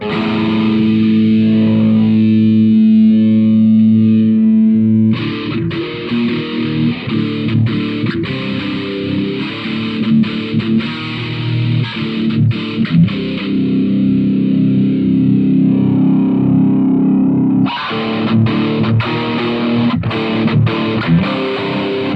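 Electric guitar played through a handmade distortion pedal with a thick, heavily distorted tone. A chord rings out for about five seconds, then gives way to choppy picked chords, another long held chord, and choppy riffing again near the end.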